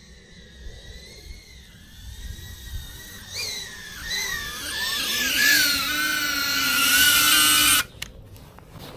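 FPV quadcopter's motors and propellers whining as it flies in to land. The whine is faint at first, grows louder with its pitch wavering as the throttle changes, then stops abruptly near the end as the motors cut.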